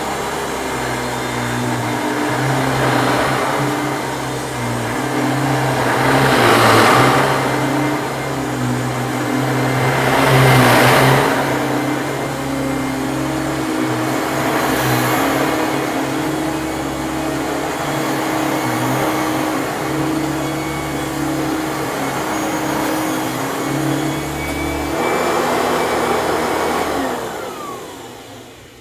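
Kenmore Power Plus two-speed heavy-duty twin-fan upright vacuum running, its motor sounding unhealthy from worn-out motor bearings. It swells louder twice, then is switched off near the end and winds down.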